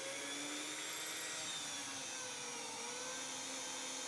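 Electric drill running steadily as a small twist bit bores a pilot hole through drywall into the wood stud behind it.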